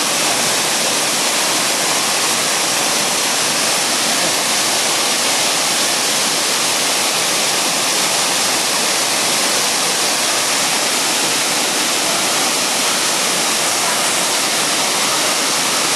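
Waterfall pouring into a rock plunge pool: a loud, steady rush of water.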